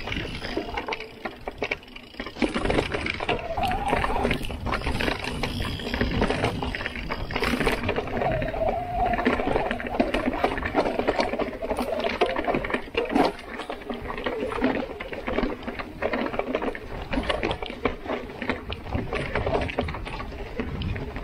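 Santa Cruz Heckler mountain bike ridden over a rocky forest trail: tyres rolling and crunching on dirt and rock, with a steady rattle of chain and frame and many small knocks from the bumps.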